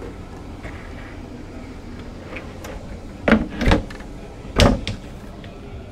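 Tall brushed-metal cupboard doors being pushed shut by hand: three knocks over about a second and a half past the middle, over a steady low hum.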